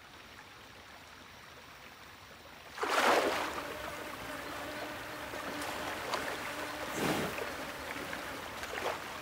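Water splashing and sloshing as a water buffalo wallows in a shallow pool: a sudden splash about three seconds in after a quiet start, then continued sloshing and dripping, with another splash about seven seconds in.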